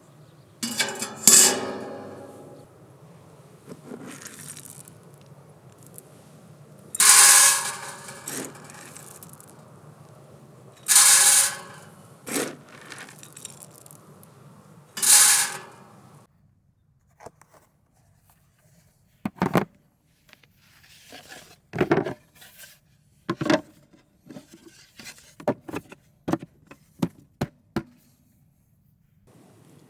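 Objects being handled: several loud scraping, clattering bursts over a low steady hum, then a scattered run of short, sharp knocks and clicks.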